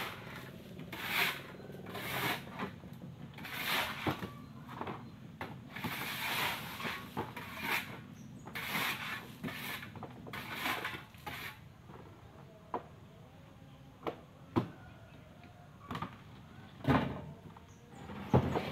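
Shovels scraping into loose gravel on a pickup truck's bed and throwing it off, a rhythm of gritty strokes about once a second. In the last several seconds it thins to a few sharp knocks of shovel on the bed.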